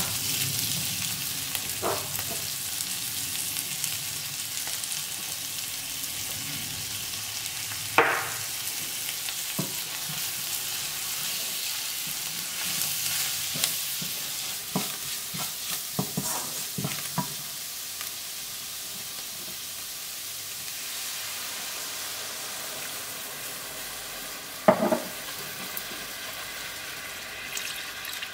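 Chopped onions sizzling in a frying pan while a wooden spatula stirs them, scraping and tapping on the pan. A few sharp knocks stand out, the loudest about 8 seconds in and near the end.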